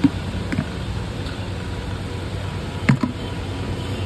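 Steady low background rumble with a few short knocks, the loudest about three seconds in.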